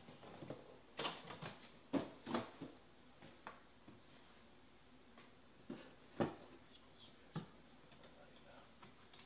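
Scattered light knocks and clicks of small objects being handled, about eight in all, the loudest about two seconds in and about six seconds in.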